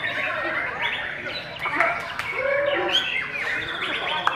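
White-rumped shama singing a fast run of varied whistles and chirps that rise and fall in pitch, with a few sharp clicks mixed in.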